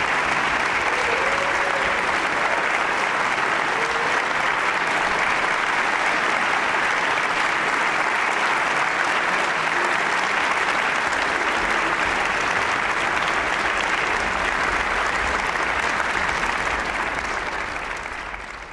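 Large audience applauding steadily in a concert hall, fading out near the end.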